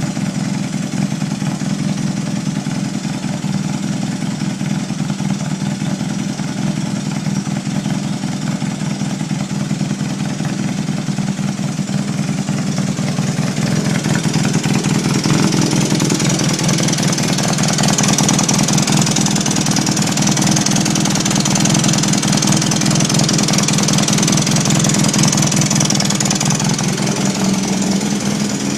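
1981 Honda CM400's air-cooled parallel-twin engine running steadily, with a noise from the top end. It gets louder and brighter about halfway through.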